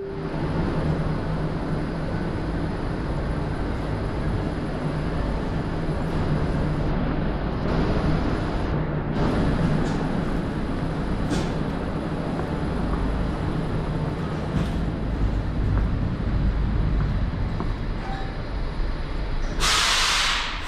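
81-760/761 'Oka' metro train standing at a station with its doors open: a steady low hum and rumble from the train and station, with a few faint clicks. About a second before the end there is a short, loud burst of hiss.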